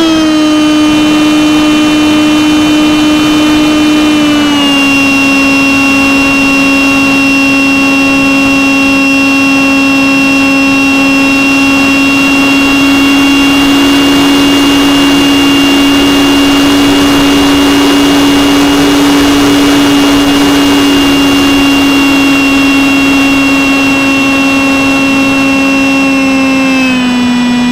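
Electric motor and propeller of an E-flite Stryker RC flying wing, heard from a camera on the plane: a loud steady whine that steps down a little in pitch about four seconds in and again near the end. A rush of wind over the camera swells in the middle.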